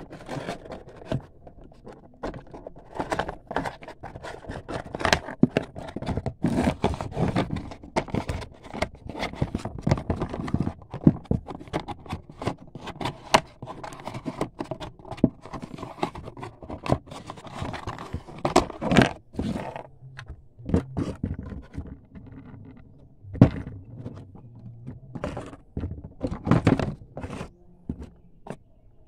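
Hands handling a cardboard box and a plastic toy helicopter with its packaging: irregular scraping, rustling and knocks of cardboard and plastic.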